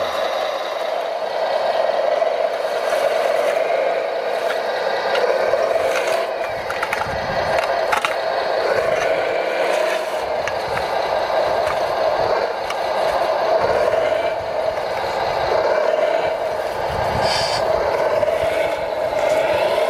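Radio-controlled model Volvo wheel loader running with a steady mechanical hum from its drive and hydraulics. Its steel bucket scrapes and clatters against rock and gravel, with scattered knocks.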